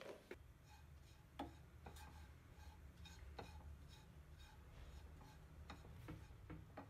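Wooden spoon stirring dry raw rice in a non-stick frying pan as it toasts: faint, irregular ticks and scrapes over a low steady hum.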